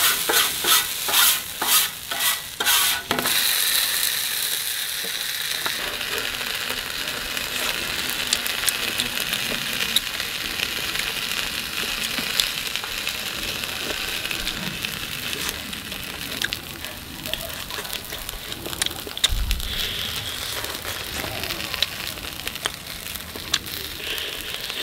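Metal spatula scraping on a flat iron griddle in quick strokes for the first three seconds, then a steady sizzle of beef and squid skewers frying in oil on the griddle.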